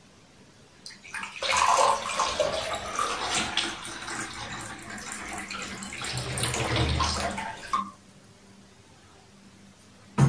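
Water poured from a plastic pitcher into a clear drinking cup: a splashing stream that runs for about seven seconds and then stops. Near the end comes a single sharp knock as the pitcher is put down.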